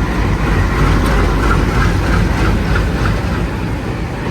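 Indian Railways train moving through the station, a loud, steady deep rumble.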